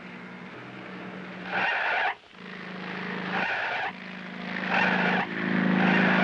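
Cartoon sound effects of a car travelling: a steady engine hum, broken by four tire screeches as it takes the bends.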